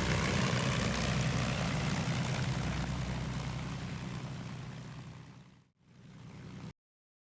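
Propeller aircraft engines running steadily, fading away over several seconds, then cutting off abruptly near the end.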